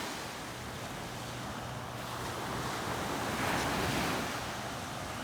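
Ocean surf washing on the beach, one wave swelling louder about three and a half seconds in, with wind on the microphone.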